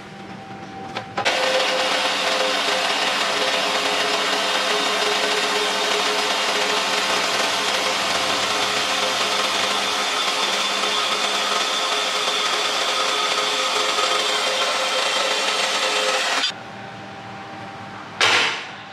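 A horizontal band saw cutting through steel angle iron, a loud steady cutting hiss with faint steady tones through it. It starts about a second in and stops abruptly after about 15 seconds. Near the end there is a short loud scrape as the cut steel pieces are slid across a steel surface.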